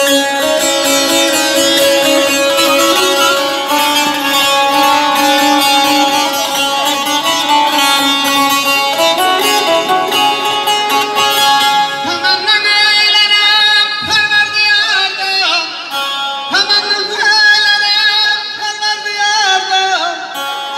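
Azerbaijani saz, a long-necked lute, played in an instrumental passage, its melody running over steady ringing drone notes. From about twelve seconds in, the melody moves in sliding, bending phrases.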